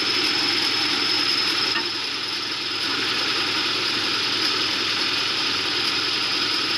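Heavy earthmoving machinery running steadily, a continuous mechanical clatter with a constant high-pitched whine over it.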